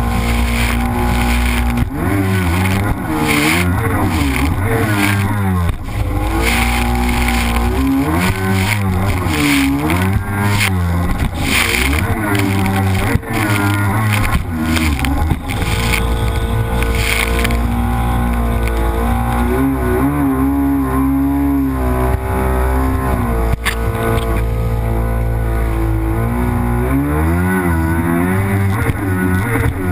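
Yamaha Superjet 650 stand-up jet ski's two-stroke twin engine running hard, its pitch repeatedly rising and falling as the throttle is worked through turns, with rushing water spray.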